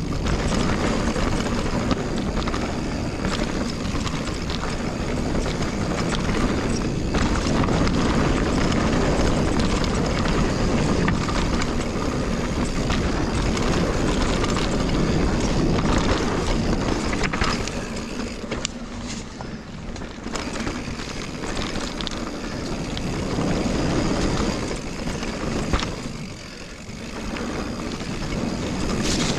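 Mountain bike riding fast down a dirt trail, heard from a chest-mounted camera: a steady rush of wind on the microphone and tyres rolling over dirt, with scattered knocks and rattles from bumps. It eases off briefly about two-thirds of the way through and again near the end.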